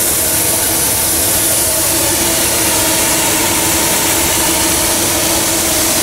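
Steady hiss of steam from a small vertical steam boiler under pressure, with a faint steady tone underneath.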